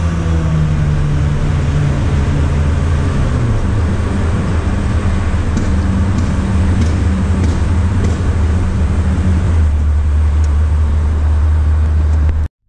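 Car engine and road noise while driving, a steady low drone heard from inside the moving car, the engine note settling lower as the revs drop at the start. It cuts off suddenly near the end.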